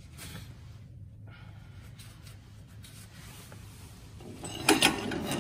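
Work gloves being pulled on: faint rustling handling noise, turning into louder rustles and clicks near the end.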